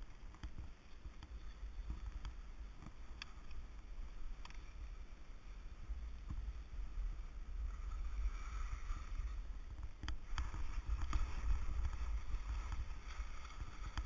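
Wind rumbling on the microphone of a skier's camera, with skis hissing and scraping over snow as the skier turns down the run; it grows louder as speed builds, loudest a little after halfway.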